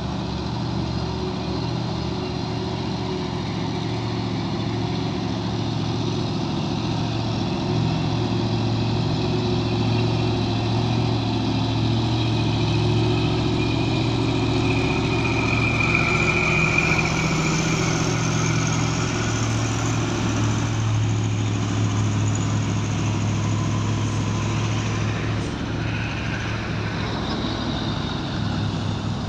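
Heavy diesel trucks driving up a hill one after another, their engines running with a steady low drone that swells louder toward the middle as they pass close by. A brief high whine comes in about halfway.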